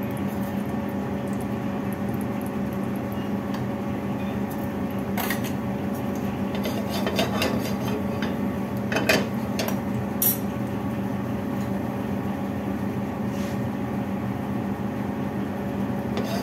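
Cumin seeds frying in hot oil in a stainless steel pan, over a steady low hum, with a few sharp clicks about five, nine and ten seconds in.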